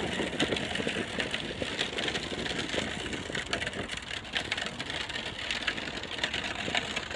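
Hard plastic wheels of a child's low trike rolling over asphalt: a continuous gritty rattle and rumble with many small clicks.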